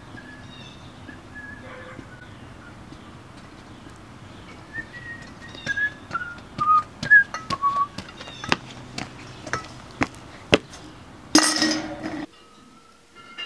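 Someone whistles a short falling tune while hard-soled shoes click on concrete. Near the end comes a loud clatter as a wire crate of glass milk bottles is set down on the concrete step.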